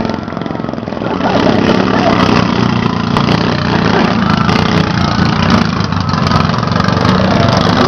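Stock-class racing riding lawn mower engines running steadily.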